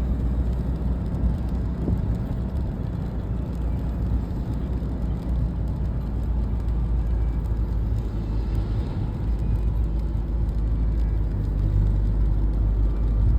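Road vehicle driving, a steady low rumble with road noise.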